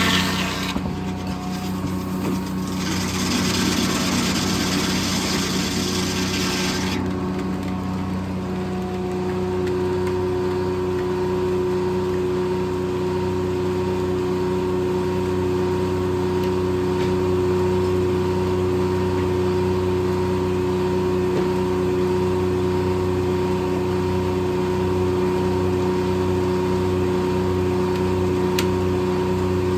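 Circle sawmill running steadily, its blade cutting through a white oak log with a loud hiss that dips briefly about a second in and stops about seven seconds in; after that the mill's engine and spinning blade run on steadily.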